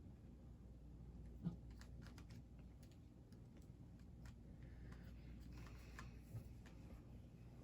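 Rubik's Cube being twisted by hand: faint, irregular plastic clicks of its layers turning, with one slightly louder knock about one and a half seconds in.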